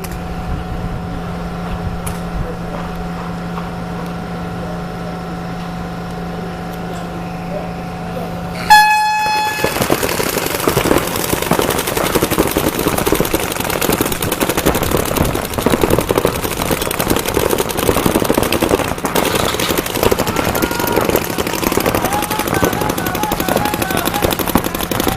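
A steady low hum, then about nine seconds in a short, loud horn blast. After it comes loud crowd noise full of fast rattling clatter, with a few voices calling out near the end.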